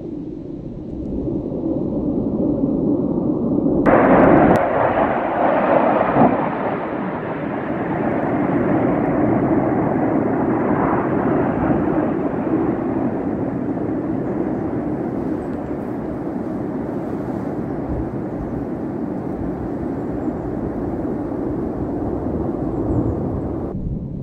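F-15 Eagle fighter jet's twin turbofan engines passing low overhead: a deep jet rumble that swells sharply about four seconds in, peaks, then holds steady and falls away near the end.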